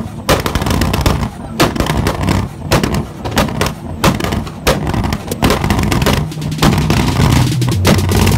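Car engine held at revs with loud exhaust bangs and pops going off irregularly, about one or two a second, over a steady low engine drone.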